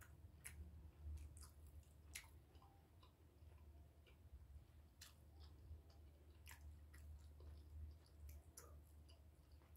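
Faint chewing, with scattered short wet mouth clicks, over a low steady hum.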